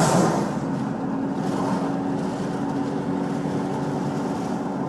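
A car's engine hum and road noise heard from inside the moving vehicle, steady throughout, with a brief louder whoosh right at the start.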